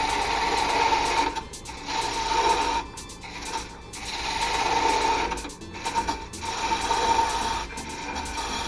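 Turning chisel cutting into a wooden spindle spinning on a wood lathe: a steady hiss of wood being shaved, with a whining tone, in passes broken by several brief pauses.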